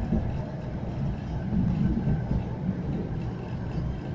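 A tram running along its track, heard from inside the passenger car: a steady low rumble of the wheels and running gear.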